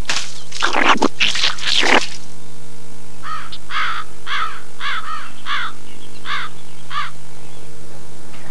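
Cartoon sound effects: a quick swishing sweep over the first two seconds, then about nine short, high, squeaky calls in a quick series, over a steady low hum.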